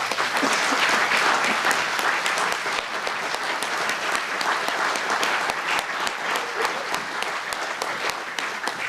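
Audience applauding: many hands clapping together, steady and dense, easing off a little near the end.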